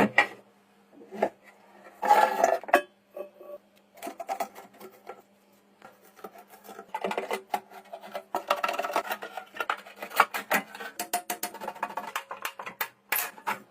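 Irregular clicks, taps and short scraping sounds of small hard parts being handled and rubbed, over a faint steady hum.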